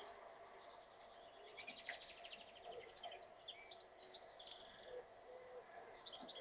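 Faint, high bird chirps and calls, with a quick run of chirps about two seconds in, over a low steady hiss.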